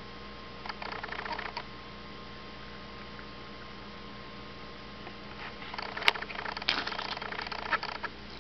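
A cat lapping from a bowl: two spells of quick, soft licking, about a second in and again from about five and a half seconds, with one sharp click during the second spell, over a steady low hum.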